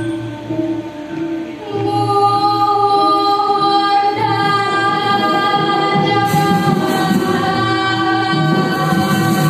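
A group singing a Balinese pupuh Ginanti in long held notes, the voices coming in about two seconds in, with the ensemble's instruments playing along.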